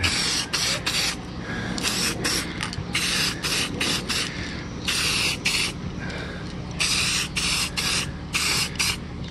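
Aerosol spray paint can hissing in many short bursts, with a few slightly longer ones, as white paint is sprayed into an electric guitar body's cavities.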